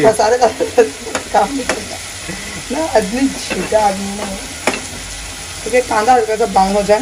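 Chopped onions sizzling in an aluminium kadhai while a metal spoon stirs them, scraping along the pan and clinking sharply against its side several times.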